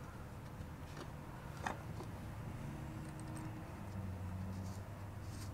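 A few faint clicks and a couple of knocks from light wooden panels and small screws being handled as screws are started by hand, the sharpest knock under two seconds in, over a steady low hum.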